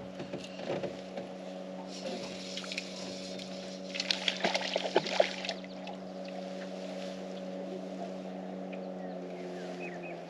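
Steady hum of a boat motor running, with a burst of water splashing about four to five seconds in as a hooked trout is brought to the landing net.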